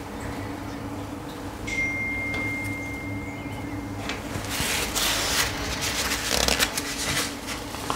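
A small plastic spatula scraping excess silicone sealant off a bathtub edge and then being wiped in a paper napkin, with paper rustling about halfway through and again near the end. A steady low hum runs underneath, and a thin steady high tone sounds for about two seconds near the start.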